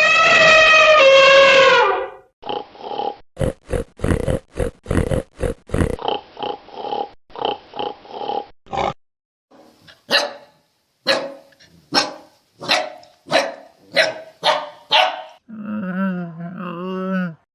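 Dogs in a run of separate clips: a two-second howl that sags slightly in pitch, then a quick string of short barks, then about nine evenly spaced barks, and a wavering pitched call near the end.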